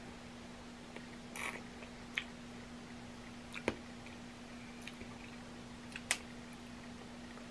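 Cooked crab leg shells cracked and pulled apart by hand, with a few sharp cracks spaced out over several seconds and faint eating sounds, over a steady low hum.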